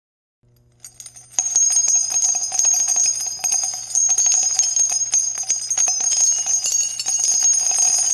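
Jingling bells with a high, ringing shimmer, used as a logo sound effect. The sound comes in faintly after near silence and turns loud and steady about a second and a half in.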